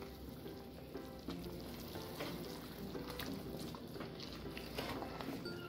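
Pot of chicken broth simmering with a faint bubbling hiss, with small clicks and knocks of metal tongs against the pot as the whole boiled chicken is turned and lifted.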